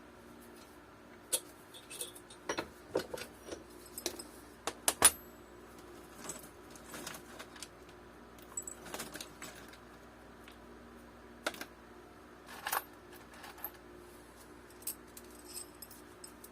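Small metal hardware (nuts and washers) clinking and rattling as it is handled and picked through: a string of sharp clicks with brief metallic ringing, most of them in the first five seconds, then a few scattered ones.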